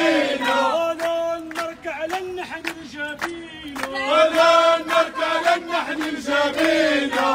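A crowd of protesters chanting slogans in unison, keeping time with rhythmic hand claps.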